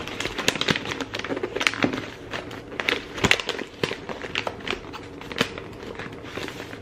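White paper rustling and crinkling in irregular crackles as it is folded and pressed flat by hand.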